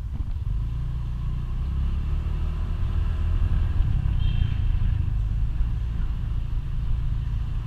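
Motorcycle engine running steadily while riding at low speed, with a low rumble.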